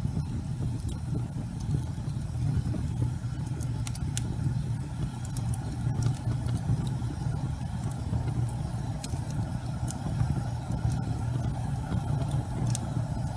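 Logs burning in a fireplace: a steady low rumble from the flames, with scattered sharp crackles and pops from the burning wood.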